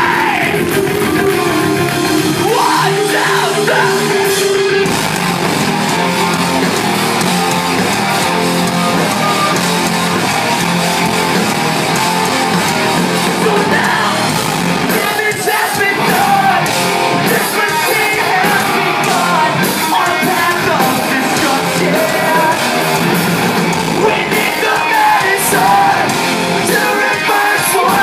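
Live rock band playing loud through a venue PA: distorted electric guitars and drums under a lead singer singing and yelling, heard from within the crowd.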